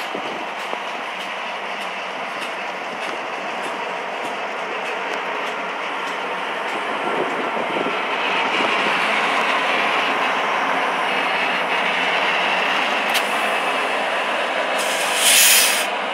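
Freight train boxcars rolling past: a steady rumble of steel wheels on rail with scattered clicks over rail joints, growing louder about halfway through. A brief loud rush comes near the end.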